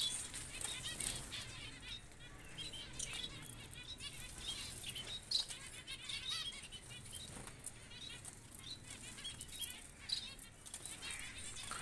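A caged flock of small finches, Bengalese (society) finches and spice finches, chirping and twittering continuously in many short high calls, with brief wing flutters.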